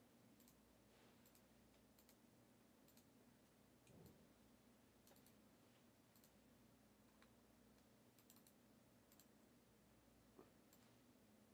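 Near silence: room tone with faint, scattered clicks from a computer's mouse and keys.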